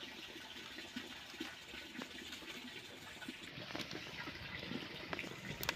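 Small fire of dry bamboo leaves and twigs burning with a faint hiss and scattered light crackles, swelling slightly as the flames take hold.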